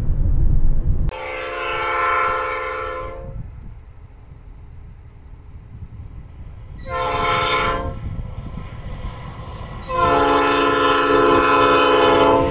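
An electric freight locomotive's multi-chime air horn sounds three blasts: long, short, then long again, the last still sounding at the end. Before the horn, for about the first second, there is the low rumble of a car in motion heard from inside the cab.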